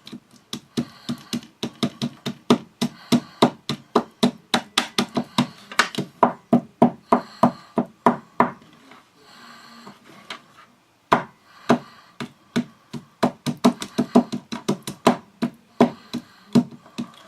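A wooden stick pounding mistletoe berries into a sticky paste: rapid knocks, about four a second, stopping for a couple of seconds around the middle and then starting again.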